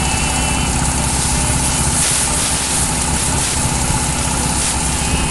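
An engine running steadily with a constant hiss over it.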